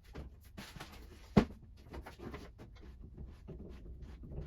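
Small clicks and rustles of hardware being handled, with one sharp click or knock about one and a half seconds in.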